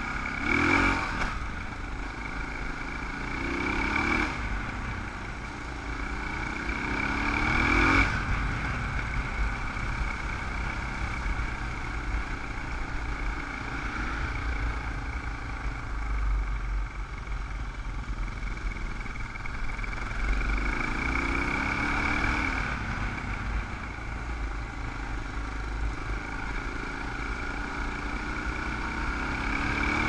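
Dual-sport motorcycle engine running under way, heard from a helmet-mounted camera. Its pitch climbs several times as the rider accelerates, about 1, 4, 8 and 22 seconds in, each time dropping back after a brief peak.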